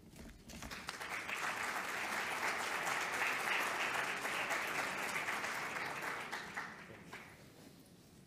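Audience applauding to welcome a speaker called to the lectern. The clapping swells over the first second and dies away about seven seconds in.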